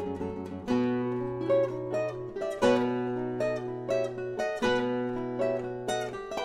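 Background music: an instrumental Christmas tune on plucked, strummed acoustic guitar, with a new chord and bass note about every two seconds.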